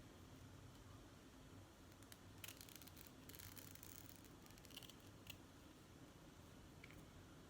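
Faint snips of scissors cutting the lace on an HD lace front wig: a few short, sharp clicks and a brief crisp rustle about three seconds in.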